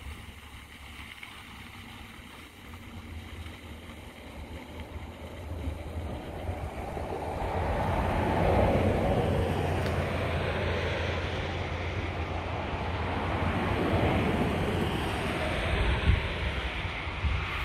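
Chevrolet Colorado ZR2 pickup's engine working as it climbs a dirt trail, a low rumble that swells louder about eight seconds in and again near the end, with wind rumble on the microphone.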